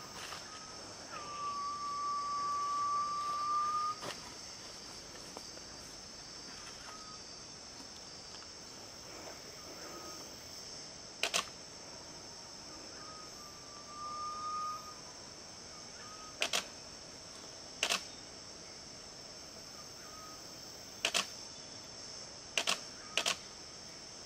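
Garnet pitta giving its long, pure whistle, rising slightly in pitch, for about three seconds starting a second in, and again more faintly in the middle. A steady high insect hum runs underneath, and several double clicks of a camera shutter come in the second half.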